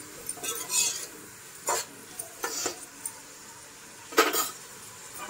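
Steel slotted spoon scraping and knocking against an aluminium pot while stirring chopped onions frying in oil, over a faint sizzle. A louder metal clank comes about four seconds in.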